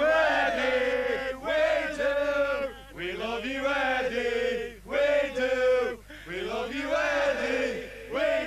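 A group of men singing together in unison, in several short phrases of held notes.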